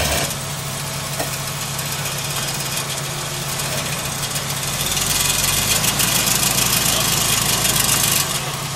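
Lifted Jeep Cherokee's engine running at low revs as it crawls over boulders, growing louder about five seconds in as it takes more throttle for the climb.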